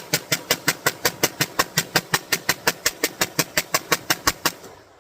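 Rapid 9mm gunfire from a 3D-printed MAC-11-style pistol: a long string of evenly spaced shots, about six or seven a second, stopping about four and a half seconds in.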